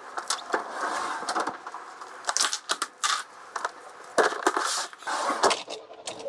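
An irregular run of knocks, clatter and rustles as tools and gear, among them a coiled hose and a foam pad, are handled and loaded into a van.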